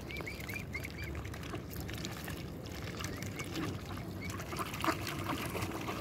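Waterbirds (mallards and mute swans with cygnets) crowding for food. There are thin, high peeping calls, a quick run of about five in the first second and a few more later. Splashing rises near the end as birds scramble in the water.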